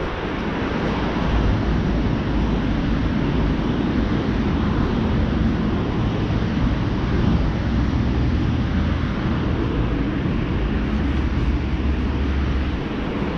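City street traffic: a steady low rumble of cars passing on the road.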